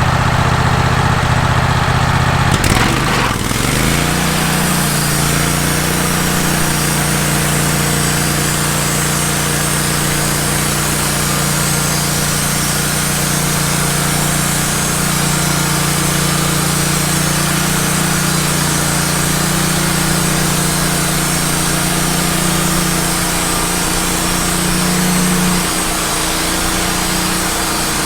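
Wood-Mizer LT15 band sawmill's engine idling, then speeding up about three seconds in and running steadily under load as the band blade saws through a log. The note shifts briefly near the end.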